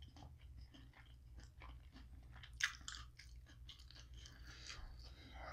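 A person chewing a big mouthful of fast food with lips closed: faint, irregular wet clicks and small crunches, with one louder crunch about two and a half seconds in.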